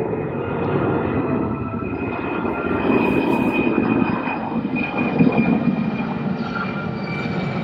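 Low flyover by a large four-engine U.S. Air Force jet transport: a steady, loud jet rumble with a high engine whine riding on top.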